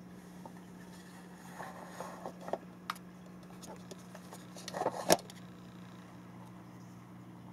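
Small plastic drawer unit being handled: the clear plastic drawer slides shut with a few light clicks and knocks, then one sharp plastic clack about five seconds in.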